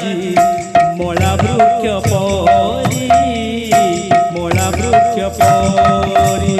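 Sankirtan devotional music: mridanga barrel drums beat a quick rhythm, about two to three strokes a second, with bright metallic splashes, under a melody that bends and slides.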